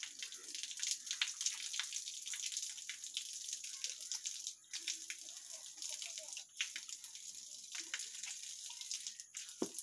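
A cow urinating: a stream splashing steadily onto a dirt floor, dipping briefly three times.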